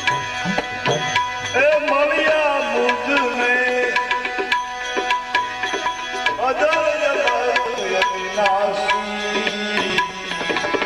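Tabla strokes keeping a steady rhythm in devotional bhajan music over held accompanying tones. A wavering, sliding melodic line comes in about two seconds in, and again about six seconds in.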